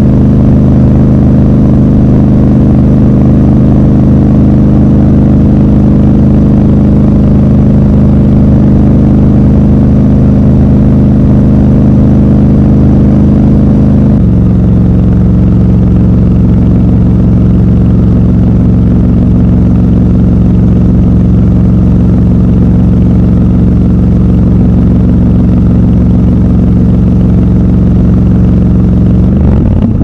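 Triumph Scrambler 1200 XC's 1200 cc parallel-twin engine and exhaust running steadily at road speed, loud and close. About halfway through, its pitch drops a step and then holds steady, and it changes again right at the end.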